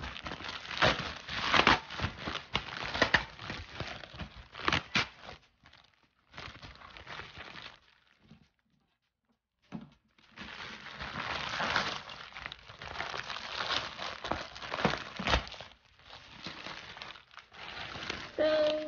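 A plastic poly mailer bag being opened and handled, its plastic crinkling in irregular bursts. There is a quiet pause of under two seconds about eight seconds in. Near the end a tablet case in a clear plastic sleeve is slid out of the bag.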